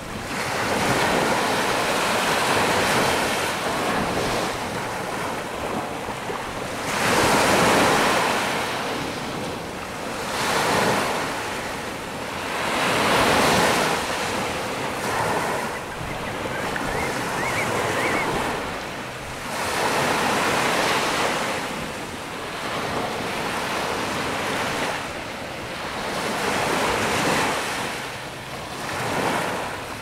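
Small waves washing in at the shoreline, swelling and falling back every few seconds, with wind buffeting the microphone.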